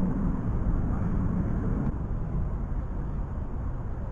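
Steady low rumble of outdoor background noise, with no sharp sounds.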